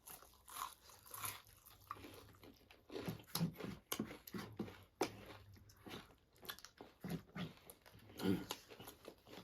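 A person chewing and biting food close to the microphone, with irregular crunches and wet mouth clicks.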